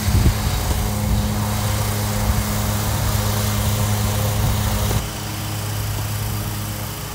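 A steady, low, engine-like drone over a hiss, dropping slightly in level about five seconds in.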